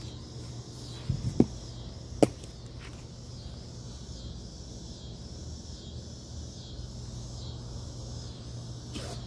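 Shovel digging into the ground: a few sharp knocks about one and two seconds in. Under them run a steady low hum and a pulsing insect chorus.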